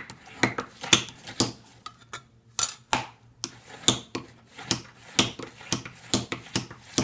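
Steel burnisher strokes against the edge of a cabinet scraper: a run of short, sharp metallic clinks and scrapes, about two a second, with a couple of brief pauses. This is the burnishing step, flattening and turning the scraper's hook.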